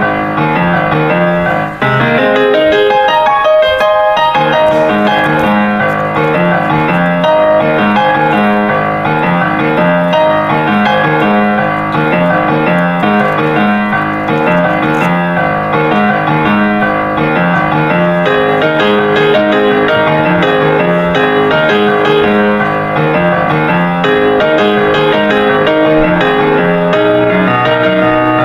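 Piano music with a repeating bass figure, briefly dipping about two seconds in.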